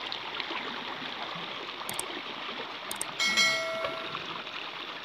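Shallow water sloshing and trickling around an arm groping under a stone wall. About two and three seconds in come two clicks, then a short, bright bell chime, the loudest sound here, typical of an animated subscribe-button overlay.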